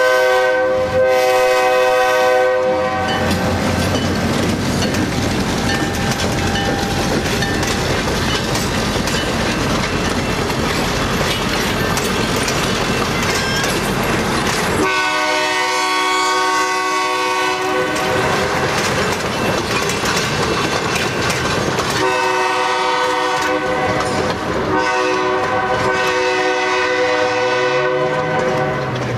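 EMD SD10 diesel locomotive of the Milwaukee Road passing close by with its train, engine running and wheels clattering over the rail joints. Its multi-note air horn sounds a blast about three seconds long at the start, then four long blasts in the second half, sounding for a road crossing.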